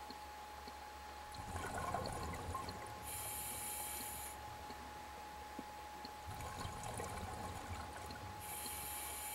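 Scuba diver breathing through a regulator underwater, two breaths: each a low bubbling gurgle followed by a high, steady hiss lasting about a second.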